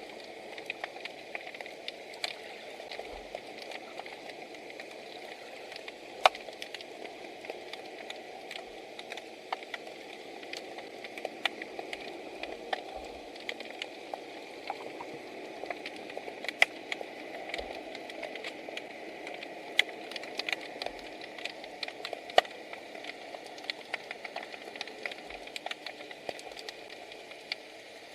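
Underwater ambience picked up by a camera submerged in shallow seawater: a steady muffled hiss with many scattered, irregular sharp clicks and crackles.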